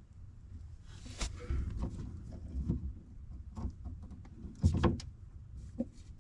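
Irregular knocks, clicks and rubbing of plumbing parts and hand tools being handled, with a louder knock about four and a half seconds in.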